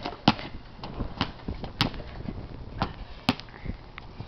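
A basketball bouncing on a concrete patio: a series of separate thuds about half a second to a second apart, a few of them sharper and louder than the rest.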